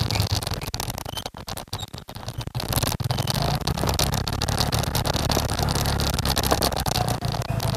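Motorcycle engine running while riding, with wind buffeting the microphone. The engine's low hum drops back for a couple of seconds about a second in, then comes back steady.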